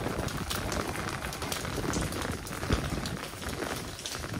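Rain falling on a wet cobbled street: a steady hiss peppered with the ticks of individual drops, with one thump a little past halfway.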